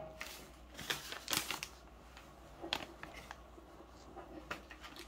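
Irregular light scrapes and clicks of a utensil stirring thick hotteok dough in a mixing bowl.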